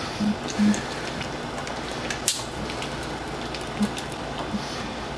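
Pots sizzling and simmering on a stovetop as liquid is poured into a hot pan of part-cooked vegetables: a steady hiss with scattered small crackles, and one sharp tap a little past two seconds in.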